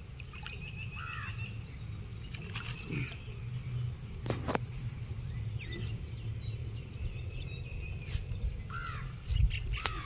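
Birds calling outdoors, with repeated short curved calls and chirp runs, over a steady high-pitched insect drone and a low rumble. There is a sharp click about four seconds in and a couple of low thumps near the end.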